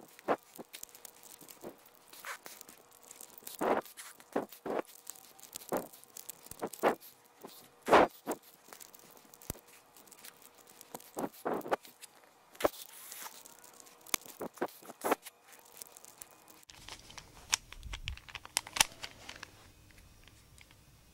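Plastic Rubik's cube being twisted, its layers clicking and clattering in quick irregular runs, sped up in fast forward.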